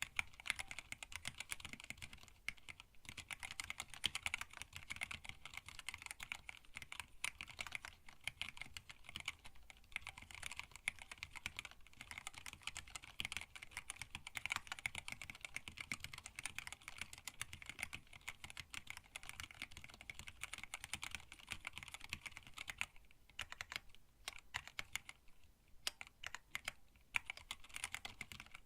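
Steady, fast typing on a hand-wired split mechanical keyboard with Tealios linear switches, blank PBT keycaps and an acrylic case. Rapid key clicks run on, with a couple of brief pauses near the end.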